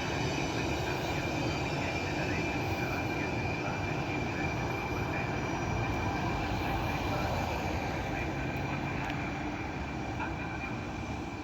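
Intercity train hauled by E464 electric locomotives running through the station: a steady rumble of wheels on rail with a steady high whine, easing off slightly near the end.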